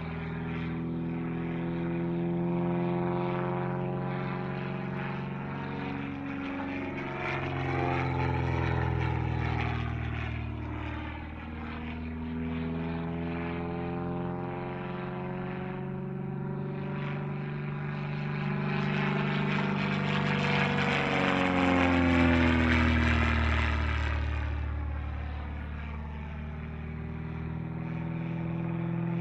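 Zlín Z-526M aerobatic plane's piston engine and propeller droning overhead, the pitch and loudness swelling and fading as the plane swings through its manoeuvres, with a whooshing, phasing sweep as it passes. Loudest about three-quarters of the way through.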